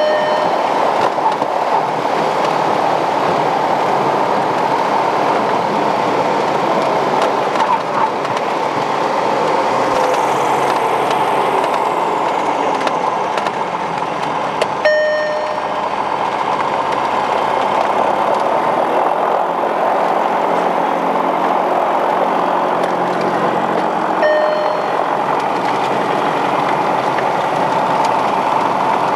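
Cabin noise of a Piper Cherokee Six during landing rollout and taxi: the six-cylinder Lycoming engine running at low power under steady airflow and rumble. Three short beeps come at intervals, about a quarter, halfway and four-fifths of the way through.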